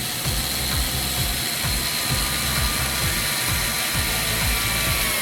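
Small electric screwdriver running steadily for about five seconds while driving a body screw, its pitch dropping slightly just before it stops.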